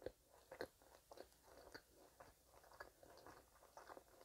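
Faint close-miked chewing of a sugar-coated, deep-fried twisted donut with a crumble topping: soft, irregular mouth clicks and small crunches, a little stronger near the start.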